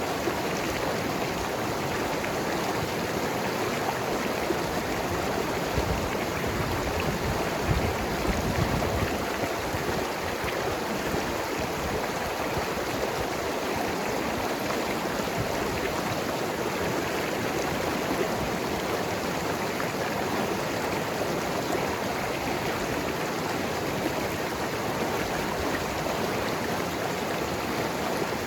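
Mountain river flowing over rocks: steady rushing and gurgling water, with a slightly heavier low surge around six to ten seconds in.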